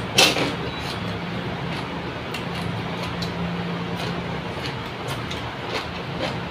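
A single loud knock or clatter just after the start, ringing on briefly, then steady background noise with a faint low hum and scattered small clicks.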